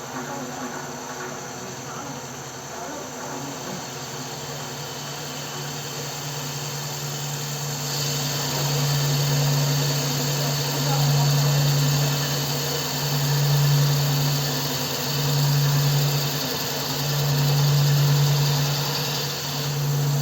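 CNC wood lathe running with a steady motor hum; about eight seconds in, cutting noise grows louder and then swells and eases every couple of seconds as the tool works the wood.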